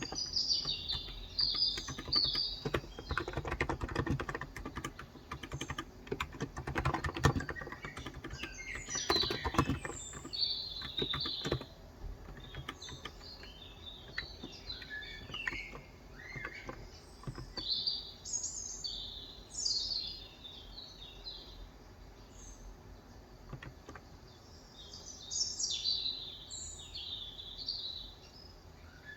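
Typing on a COX Endeavor 35 g electro-capacitive (Topre-style) tenkeyless keyboard: quick runs of keystrokes for about the first twelve seconds, then only occasional presses. Birds chirp throughout.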